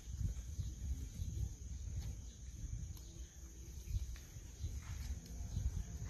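Rural outdoor ambience: a steady high insect drone over a low, uneven rumble, with a few faint ticks.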